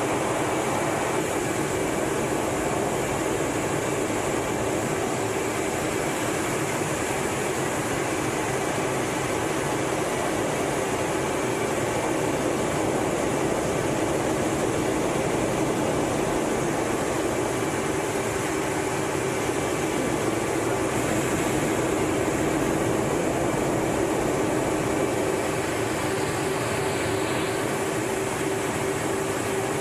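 Steady in-flight cockpit noise inside a Blue Angels F/A-18 Hornet: a constant rush of engine and airflow noise with a steady hum and faint thin high whines. It holds at the same level throughout.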